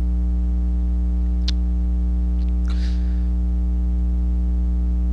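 Steady electrical mains hum with many overtones, picked up by the recording chain. A single faint click sounds about one and a half seconds in, and a soft brief rustle comes near three seconds.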